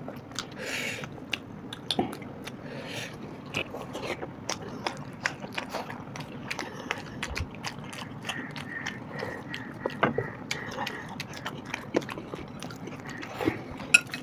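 Two people eating close to the microphone: chewing and lip smacks, with frequent short, sharp mouth clicks all through.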